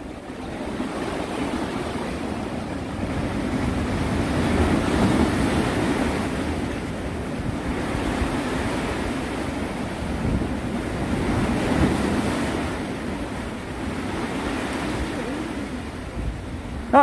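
Sea waves washing in around the concrete tetrapods of a breakwater, with wind on the microphone. The wash swells and eases in slow surges.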